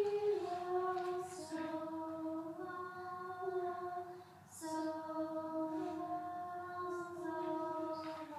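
Junior high choir singing a sight-reading exercise in unison, held notes stepping up and down, with a short breath break about four seconds in.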